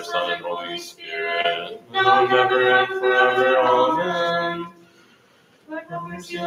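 Voices chanting a Byzantine liturgical hymn a cappella, in long held notes. The singing stops for about a second near the end, then starts again.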